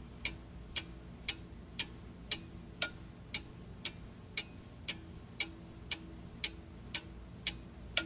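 A clock ticking steadily, about two sharp ticks a second.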